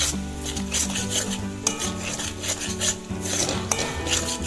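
A metal spatula scraping and stirring a thick onion-chilli and ground-spice paste around a metal kadai, in a run of rasping strokes two or three a second, as the masala is fried down.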